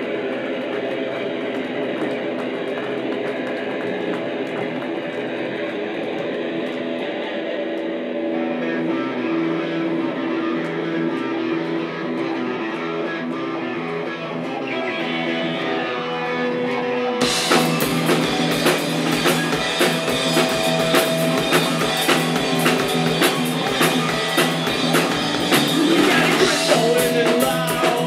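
Live rock band playing an instrumental passage. Guitars ring out alone at first, then about seventeen seconds in the drum kit comes in with a steady beat and the music grows louder and fuller.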